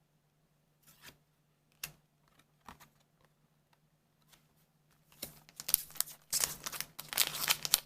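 A few light clicks and rustles of trading cards being handled, then, about five seconds in, dense crinkling and tearing of a Weiss Schwarz booster pack wrapper being torn open.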